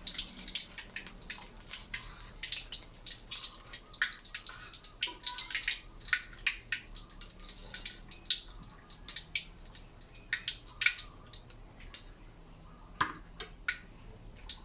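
Hot deep-frying oil in a wok crackling with short, irregular spits and pops as the last fried rambutan fritters are lifted out, with oil dripping back from the strainer. The pops thin out toward the end.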